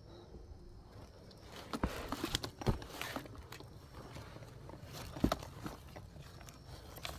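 A hiker's footsteps and scuffs climbing a steep mountain trail, with several sharp knocks and scrapes, the loudest about two and a half seconds in and again past the middle.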